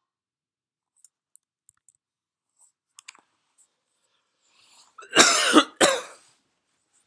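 A person coughing twice in quick succession about five seconds in, loud against the room. A few faint computer-mouse clicks come before it.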